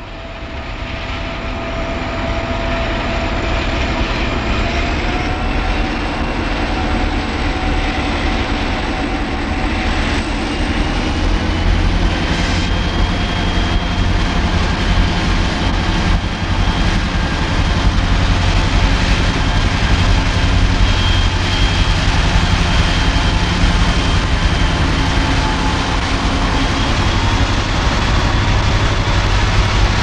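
Southern Railway six-axle diesel-electric locomotives passing close by with their engines working. A heavy rumble grows louder over the first few seconds, under a steady whine that rises in pitch about five seconds in and again around twelve seconds.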